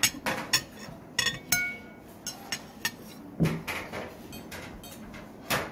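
Metal spoon clinking against ceramic bowls and plates while food is tasted: a dozen or so irregular sharp clinks, one about a second and a half in ringing on briefly.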